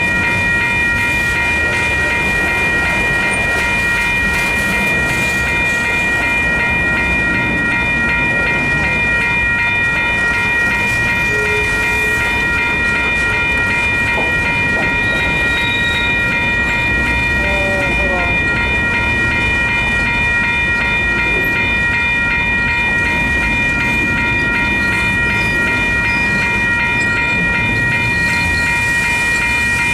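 Freight train's cars rolling past close by, a steady rumble of wheels on rail, with several steady high-pitched ringing tones sounding over it throughout.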